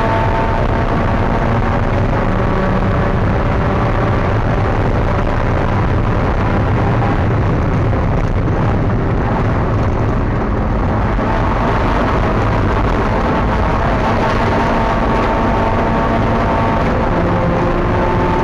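Spec Miata race car's four-cylinder engine running hard, its pitch rising and falling, heard from inside the car over steady road and wind noise. The engine note weakens for a couple of seconds about halfway through, then builds again.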